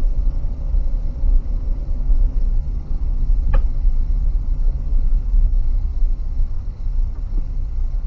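A car driving slowly, heard from inside the cabin: a steady low rumble of engine and tyres on the road. A single short click comes about three and a half seconds in.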